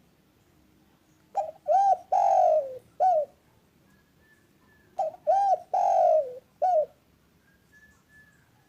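Spotted dove (derkuku) cooing: two repeated four-note phrases, each a short coo, an arched coo, a long falling coo and a short closing coo, the second phrase about three and a half seconds after the first. Faint high chirps are heard in between and near the end.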